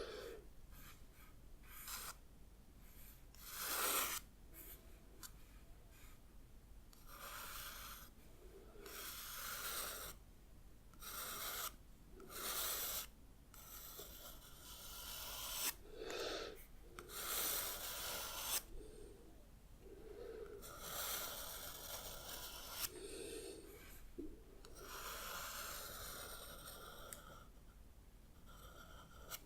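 Heavy breathing, slow breaths in and out repeated every few seconds, with the soft scratching of drawing strokes on paper between them.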